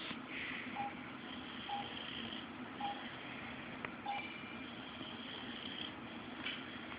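A sleeping boxer dog's soft, noisy breathing as her snoring dies down. About a second apart early on come four short, faint beep-like tones.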